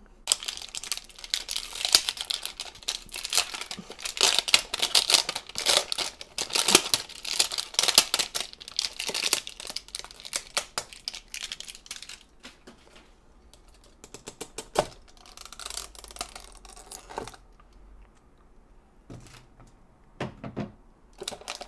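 Clear plastic wrapper crinkling and tearing as it is peeled off a cardboard blind box. It is a dense crackle for about the first twelve seconds, then gives way to quieter scattered clicks and rustles as the box is handled and opened.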